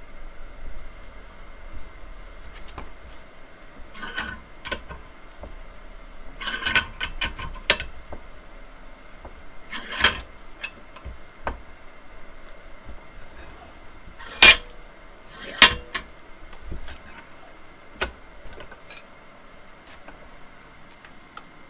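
Metal-on-metal clinks and knocks from a bench vise and steel parts being handled while a pivot bush is pressed into a track rod end as an interference fit. Scattered irregular clinks, with two sharp, loud clacks about a second apart past the middle.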